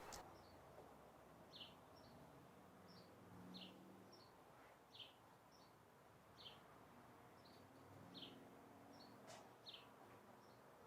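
Near silence, with faint, short high-pitched chirps repeating about once a second.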